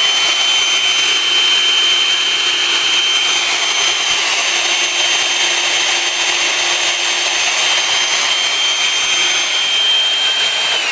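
Fein JHM Short Slugger magnetic drill press motor running steadily at full speed, a high whine holding one pitch. Near the end it is switched off and the whine starts to fall as the motor winds down.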